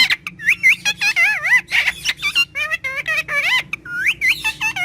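Parrot chattering in a fast run of short, wavering whistles and squeaky, speech-like calls, broken by sharp clicks.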